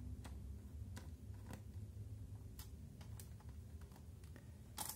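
Faint, irregular small clicks and taps of a screwdriver backing the screws out of the HP EliteBook 745 G3 laptop's bottom cover, with a sharper click near the end.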